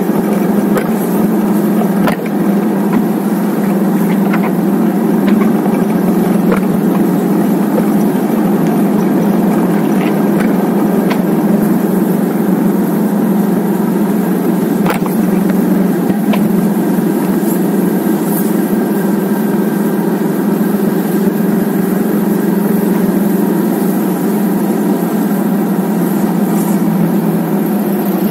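Cruiser motorcycle engine running at a steady pace while riding, under a constant rush of wind and road noise.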